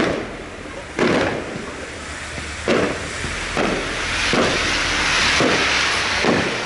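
Fireworks exploding in a display: a string of sharp bangs about one a second, with a crackling hiss building up over the second half.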